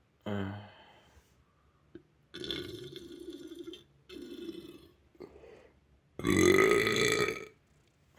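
A boy burping several times in a row: a short burp at the start, longer ones about two and four seconds in, and the loudest, longest burp about six seconds in.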